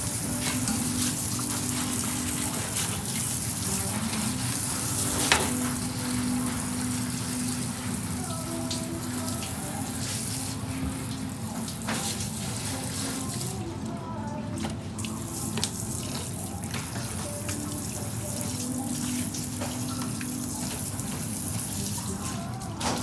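Water spraying steadily from a kitchen pre-rinse spray nozzle onto a whole saithe being rinsed in a stainless steel sink, with a sharp knock about five seconds in.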